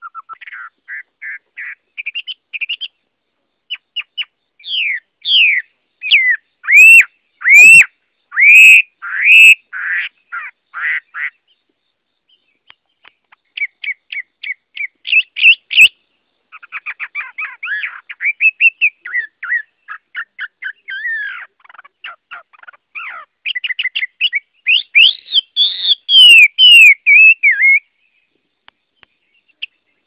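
Chinese hwamei (Garrulax canorus) singing a long, varied song of rapid repeated notes and loud slurred whistles. After a short break near the middle it resumes with a fast run of notes, then more loud whistles, and falls almost silent near the end.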